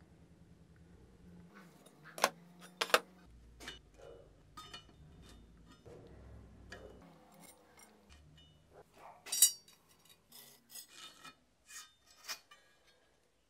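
Steel workpieces and tools being handled, with irregular metallic clinks and some scraping: two sharp clinks a couple of seconds in, and a cluster of clinks from about nine seconds in, the first of them the loudest.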